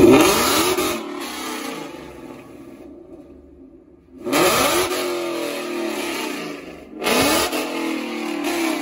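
Ford Mustang GT 5.0 Coyote V8 with an updated exhaust, blipped three times: a rev dies away at the start, then two more sharp throttle blips about 4 and 7 seconds in, each falling back toward a low idle.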